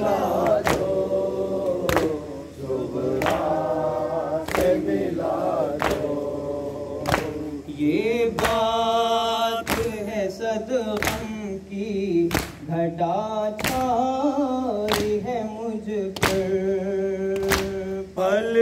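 A crowd of male mourners chanting a Muharram nauha in unison, kept in time by rhythmic matam, the hand-strikes on the chest landing about three every two seconds.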